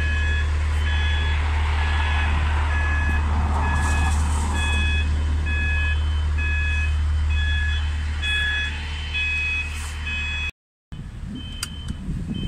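Orange road-rail work-platform vehicle running on the track, its diesel engine giving a steady low hum under a warning alarm that beeps about twice a second as it moves. Near the end the sound cuts out briefly, and then a level-crossing alarm beeps at a higher single pitch.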